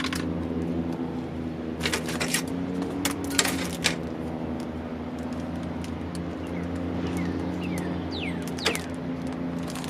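Hands handling a plastic bag and double-sided tape: crinkles and sharp clicks about two seconds in and again around three to four seconds, over a steady low hum. A few short, high, falling chirps come near the end.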